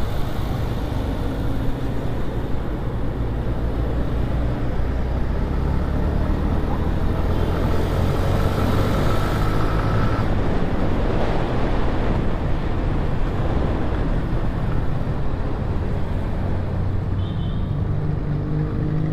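Motorcycle engine running steadily under way, with wind and road noise on the rider's microphone and other traffic passing.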